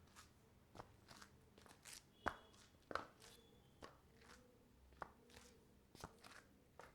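Faint footsteps in slippers on a marble floor: an uneven series of short steps, with two louder ones a little past two and three seconds in.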